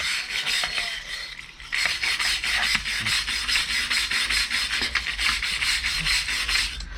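Wooden-backed wire block brush scrubbed rapidly back and forth across a piece of steel lawnmower blade: a dense, scratchy rasping made of quick strokes. It eases off briefly about a second in, then picks up again harder.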